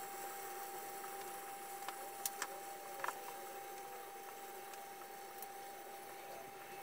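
Quiet kitchen sound: a faint steady high whine over a low hiss, with a few light clicks and taps of things being handled at the counter, about two to three seconds in.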